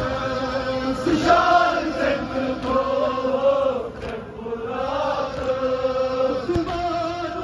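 A man chanting a Kashmiri noha, a Shia lament for Muharram, into a microphone: amplified solo singing in long held, bending notes, with a short break between lines about four seconds in.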